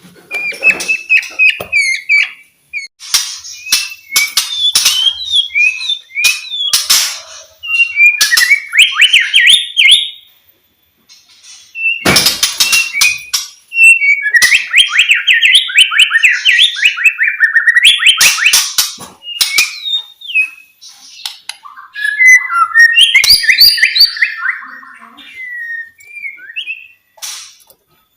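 White-rumped shama (murai batu) singing loudly: a run of varied whistled phrases and fast rattling trills, mixed with sharp clicks, with a short pause about ten seconds in.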